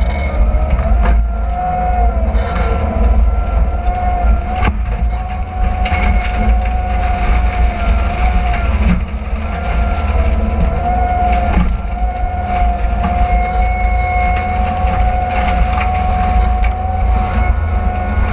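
AFE SS Series disc mulcher on a CAT 299D compact track loader grinding brush and small trees: the loader's diesel engine runs under load with a heavy rumble and a steady, slightly wavering whine. Occasional sharp cracks come as wood is struck by the spinning disc, the sharpest about four and a half seconds in.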